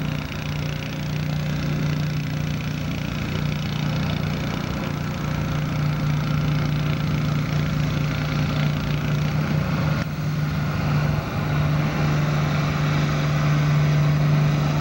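International Harvester farm tractor engine running under load as it pulls the weight sled, one steady engine note held through the pull.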